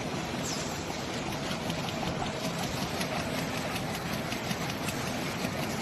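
Industrial laser profile-cutting machine running, a steady mechanical noise with a dense patter of faint ticks.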